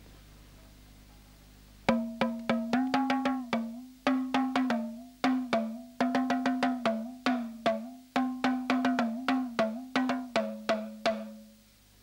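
Hourglass talking drum struck with a stick in a quick run of pitched beats, about three or four a second. The tone steps up and down as the drum is squeezed under the arm. The playing starts about two seconds in and ends on a longer, lower note shortly before the end.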